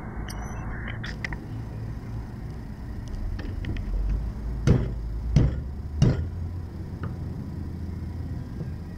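Three hard knocks of a kitchen knife coming down on garlic on a thick round wooden chopping board, about two thirds of a second apart, with a few light taps before them.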